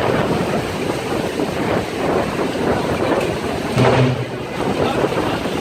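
Storm wind from a tornado rushing and gusting hard across the microphone, swelling and easing in waves, with a brief low hum and a louder surge about four seconds in.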